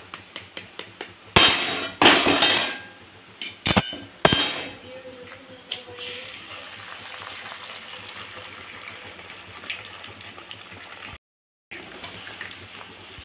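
Several sharp metal clinks and knocks on a steel wok, followed by a steady sizzle of hot oil with the frying vegetables.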